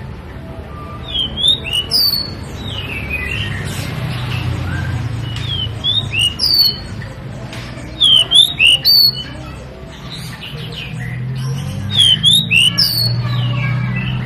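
Pied bushchat (decu) singing: short bursts of three to five quick, sweeping whistled notes, repeated every few seconds.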